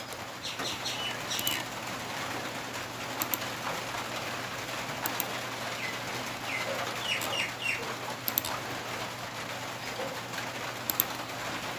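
Birds calling in the background over a steady low room hum, with a cluster of short chirps about six to seven seconds in. A few sharp computer-mouse clicks sound through it.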